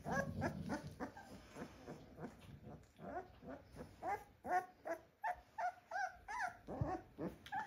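Two-week-old North American Mastiff puppies whimpering and squealing: a run of short, high-pitched cries, about two or three a second, many rising and then falling in pitch.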